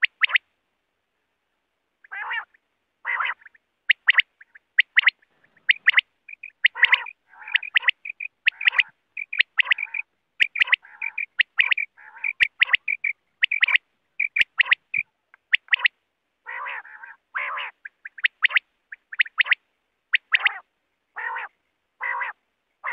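Quail calling over and over: a fast series of short, sharp notes, broken by some longer, lower, rougher notes.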